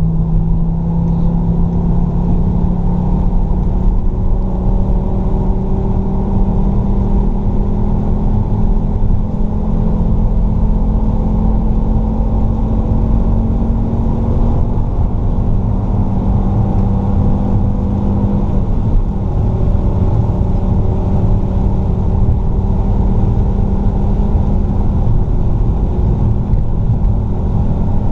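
Fiat Stilo Abarth's 2.4-litre five-cylinder engine pulling under load on track, its note climbing slowly for about eighteen seconds, then dropping and running steadily again.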